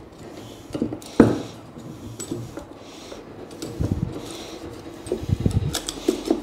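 Hands handling electrical cables and an old round junction box in the void under floorboards: scattered rustling and small clicks, a sharp knock about a second in, and a few dull thumps later.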